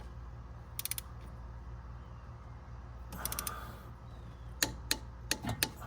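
Hand tools working on metal: a quick run of small clicks about a second in, a brief scrape a little past three seconds, and several single taps near the end, over a steady low hum.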